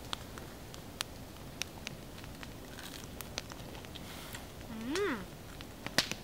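Small campfire crackling, with scattered sharp pops and a louder snap near the end.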